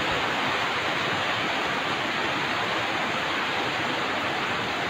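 Heavy rain falling, a steady, even hiss with no breaks.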